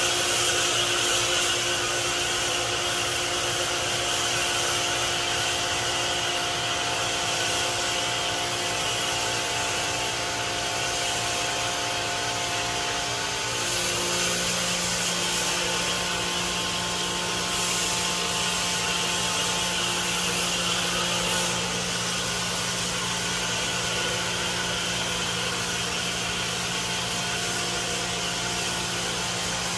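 Chemical foam spraying from a trigger gun and wand: a steady hiss over a steady machine hum, the hum changing about halfway through.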